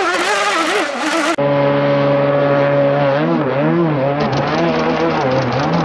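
Radio-controlled racing hydroplane running fast on open water. Its motor note rises and falls in pitch with throttle and turns, over a hiss of spray. An abrupt cut about a second and a half in switches to a slightly duller recording of the same run.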